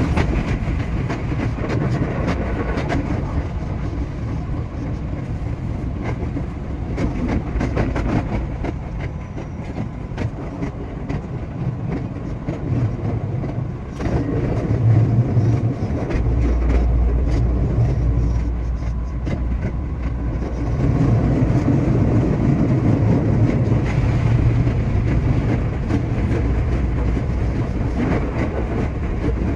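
JR West 227 series electric train running, heard from the driver's cab: a steady rumble of wheels on rail with many sharp clicks from rail joints, and a stronger low hum from about halfway through.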